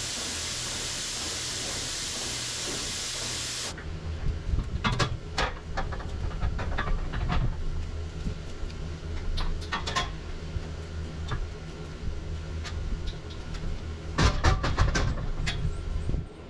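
A steady hiss, then an abrupt change about four seconds in to a low, steady machine hum with scattered metallic clanks and knocks, loudest in a cluster near the end.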